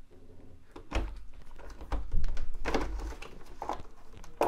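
APC RBC123 battery pack being slid into the battery bay of an APC Back-Ups Pro 1000 UPS. It rubs along the plastic with a low scrape and gives a few dull knocks as it is shoved home onto its connector.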